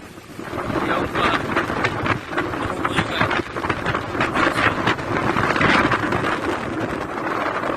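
Strong storm wind rushing and buffeting the microphone in uneven gusts.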